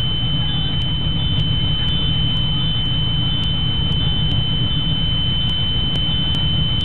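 School bus warning alarm sounding: a steady high-pitched tone with a fainter beep repeating at an even pace, over a steady low rumble from the bus.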